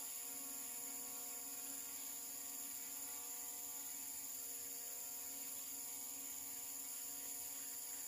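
Faint, steady hum of a small quadcopter drone flying high overhead, over a constant high-pitched insect buzz.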